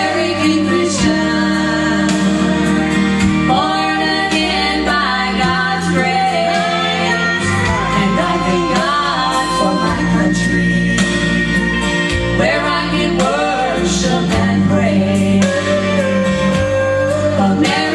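Country-style gospel song: singing with wavering, held notes over continuous instrumental accompaniment.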